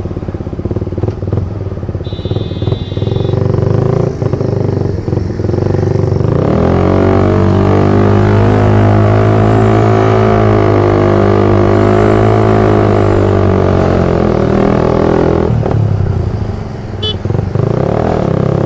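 Suzuki Satria FU motorcycle's 150 cc single-cylinder engine under way in traffic: rolling unevenly at low revs, then accelerating about six seconds in and holding a steady pull before easing off near sixteen seconds and picking up again.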